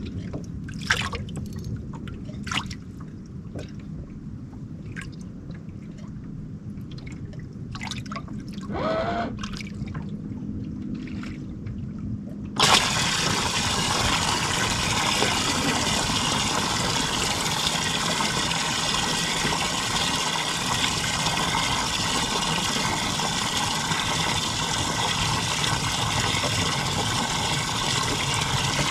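A few light clicks over a quiet background. About thirteen seconds in, a loud steady rush of water-like noise starts suddenly and runs on evenly.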